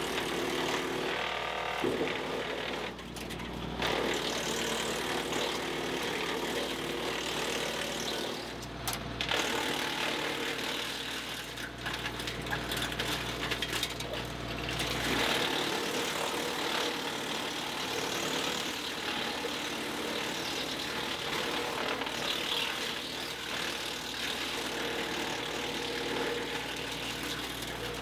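Woodland Mills WC68 PTO-driven wood chipper running off a tractor, its hydraulic infeed roller drawing branches in to be chipped, over the steady drone of the tractor engine. The sound dips briefly a few times and changes about halfway through as the load on the chipper varies.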